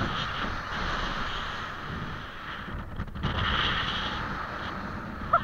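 Wind rushing over an action camera's microphone as the bungee jumper swings on the cord, a steady noisy rush that dips briefly about halfway through.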